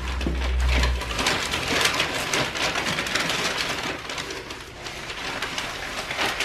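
Packing paper rustling and crinkling as hands dig into a cardboard box and lift out a paper-wrapped brake rotor. A low steady hum stops about a second in.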